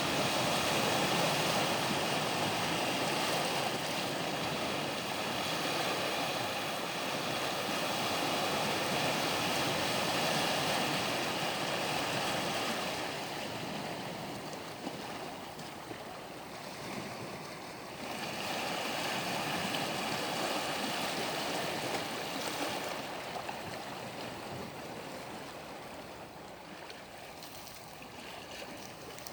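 Sea waves breaking and washing, a steady rushing that eases off about halfway, swells again, then slowly fades toward the end.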